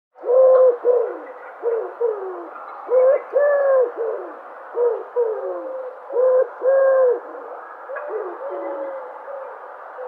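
Dove cooing: a quick series of short, hooting notes, several sliding down in pitch, with a few pauses between groups, over a steady background hiss.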